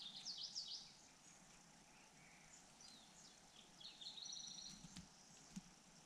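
Faint high-pitched begging chirps from nestlings: a quick run of squeaky notes at the start, then a buzzy, rapid trill about four seconds in.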